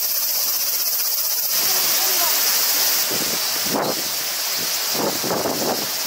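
Steady, high-pitched chorus of cicadas. From about three seconds in, strong wind gusts buffet the microphone in uneven surges.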